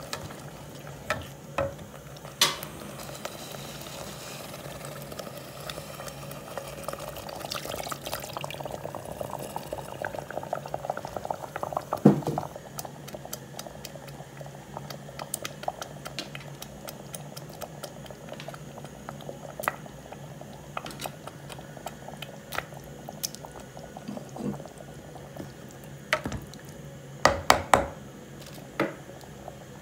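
Tomato stew bubbling in an aluminium pot, with a spatula stirring and knocking against the pot. Scattered clicks and knocks, the loudest about twelve seconds in and a quick cluster near the end.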